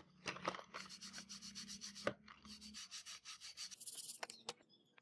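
A stiff bristle brush scrubbing rusty model car parts wet in a tub of cleaning liquid, in rapid scratchy strokes with a short break partway through. A brief high hiss and a few clicks follow as the scrubbing stops.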